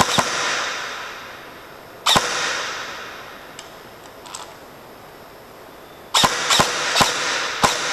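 Airsoft gun fire: six sharp single cracks, each with a long echo in a large empty hall. One comes at the start, one about two seconds in, and four follow in quick succession near the end.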